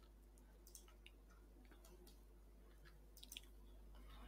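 Near silence: room tone with a faint steady hum and a few faint computer mouse clicks, two close together about three seconds in.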